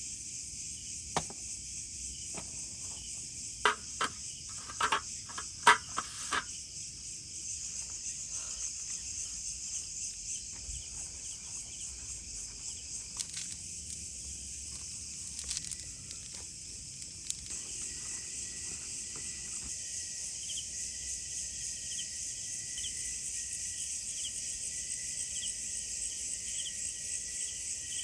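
Steady chorus of crickets and other insects, dense and high-pitched. A handful of sharp clicks or knocks come about four to six seconds in, and later a second steady insect tone with regularly repeated chirps joins.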